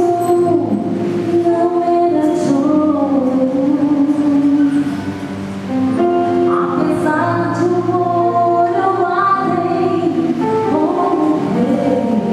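Gospel song: several voices singing together like a choir over instrumental backing, with long held notes.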